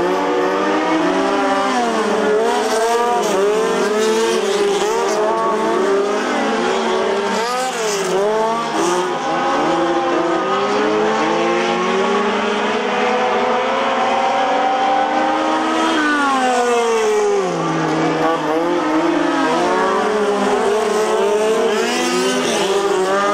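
Several midget race cars running together on a dirt oval, their engines revving up and down so that many pitches overlap, repeatedly rising and falling.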